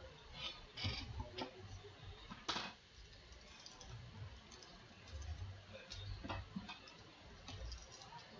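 A paper trading-card pack being handled on a mat: faint scattered clicks and rustles of the wrapper, with a louder one about two and a half seconds in.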